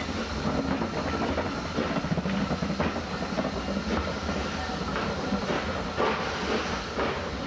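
BR Standard Class 9F steam locomotive working hard as it hauls a train of passenger coaches past and away. There is a steady rumble and hiss, and the coaches' wheels click over the rail joints every second or so.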